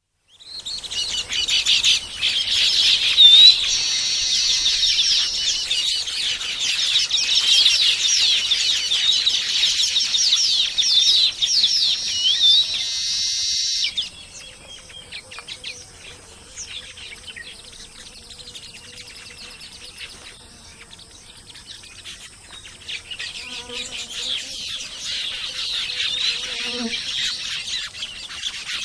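A colony of baya weavers chattering: dense, overlapping high chirps, wheezy trills and short rising whistles. About halfway through the chorus cuts off abruptly to quieter, scattered calls, which build up again near the end.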